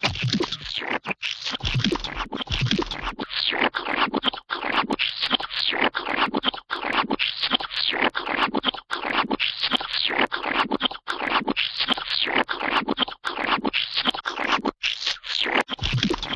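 Gooey splat sound effects played in a rapid, overlapping string, several splats a second without a break.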